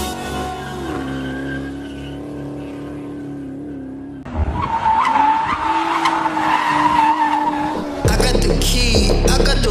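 Car engine held at high revs during a drift, with tyres squealing loudly from about four seconds in. Music with heavy bass cuts back in near the end.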